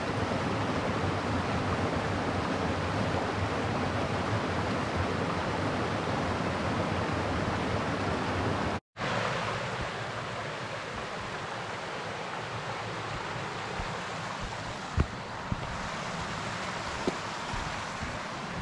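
Steady rush of a fast-flowing woodland stream, cut off abruptly about nine seconds in and quieter after, with a couple of faint knocks in the second half.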